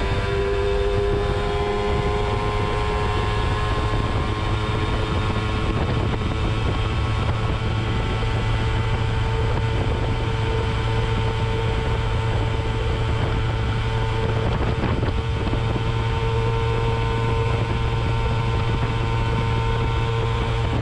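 Simson S51's 50 cc single-cylinder two-stroke engine, breathing through two exhausts on a welded twin manifold, running at full throttle near top speed, a steady high drone whose pitch creeps slightly upward as the moped gains speed. Wind rushes over the microphone.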